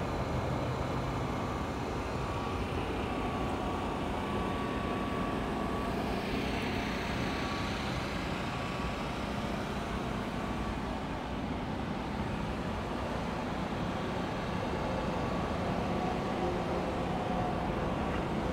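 Steady background hum of vehicle engines and outdoor noise, with a brief rise in hiss about six seconds in.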